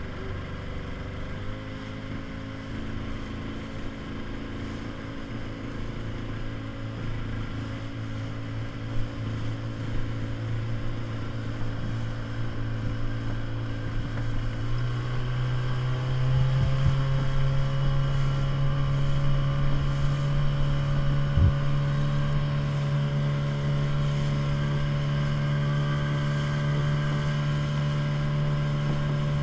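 Small inflatable speedboat's engine running steadily under way, with wind and water noise. About halfway through the engine note steps up in pitch and grows louder as the boat speeds up, then holds steady.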